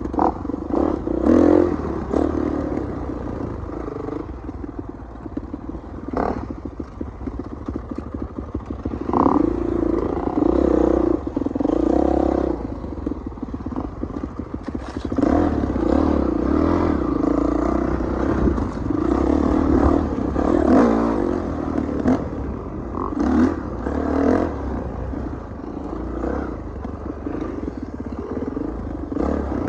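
Dirt bike engine running on a rough trail, its loudness swelling and falling every few seconds as the throttle is opened and eased off, with many short knocks and rattles from the bike jolting over bumps.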